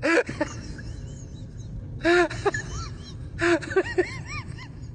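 A voice crying out in short rising-and-falling wails, "wao wao", in three quick clusters, over a steady low rumble.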